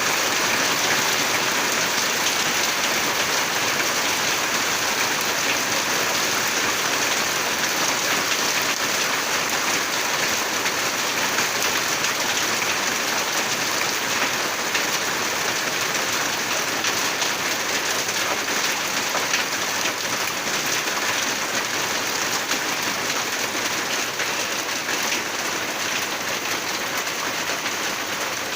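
Steady rain pouring down, a dense hiss of countless drops hitting surfaces. It holds even throughout and eases off slightly near the end.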